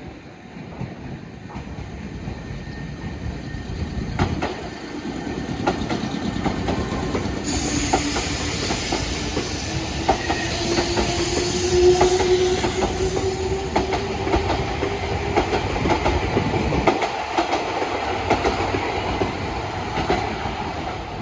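Electric train passing, its wheels clattering over the rail joints, with a whine that slowly rises in pitch. It builds up over the first few seconds and is loudest about halfway through.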